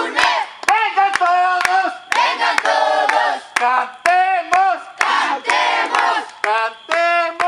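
A group of scouts shouting a campfire cheer in unison, in short rhythmic calls about two a second with sharp claps between them.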